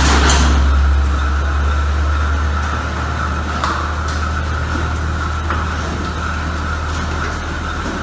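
Milking parlour machinery running: a steady low hum with a steady higher whine. A loud hiss dies away in the first half-second, and there are a couple of light clicks about halfway through.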